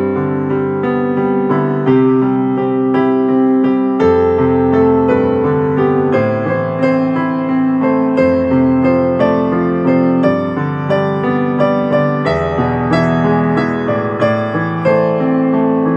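Instrumental ringtone tune played on electric piano: a melody of struck notes over sustained chords, with the bass note changing about every four seconds.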